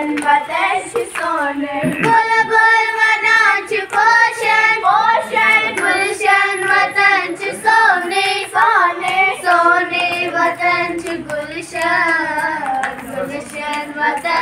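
A group of young girls singing a Kashmiri folk song together, one sustained melodic line of children's voices running continuously.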